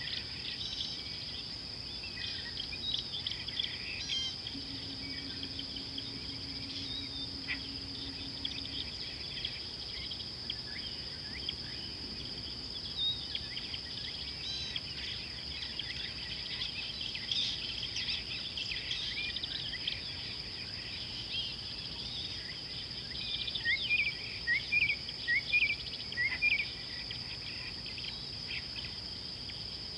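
Steady high-pitched insect drone under scattered bird calls. Near the end a bird gives a quick run of short rising chirps, the loudest sound.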